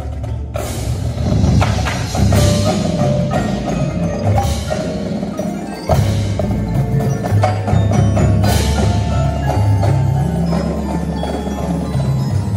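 Indoor percussion ensemble playing: marimbas and other mallet keyboards strike quick ringing notes over a sustained low bass line. Several strong accented hits, each with a ringing high tail, land about half a second, two, four and a half and eight and a half seconds in.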